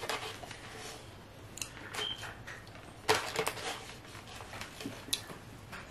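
Plastic fork scraping and clicking against a styrofoam takeout box as food is picked up. There are scattered small clicks, with a louder cluster of clatter about three seconds in.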